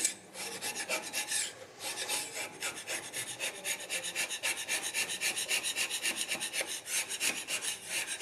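Hand scraper with a carbide-tipped blade scraping the unhardened guideway of a surface grinding machine: short rasping strokes, a few a second, with a brief pause about one and a half seconds in.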